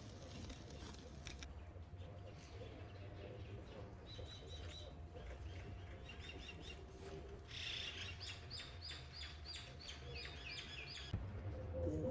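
Birds chirping: short high notes, then a rapid series of about three chirps a second near the end, over a steady low hum.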